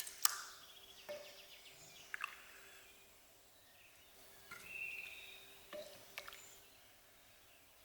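Faint bird chirps mixed with a few sharp clicks and light knocks over a faint steady hum.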